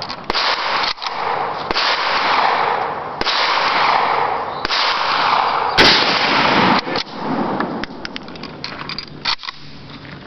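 Mosin-Nagant bolt-action rifle fired at a range: several sharp gunshot cracks, the loudest about six seconds in, over a steady rushing noise that fades near the end.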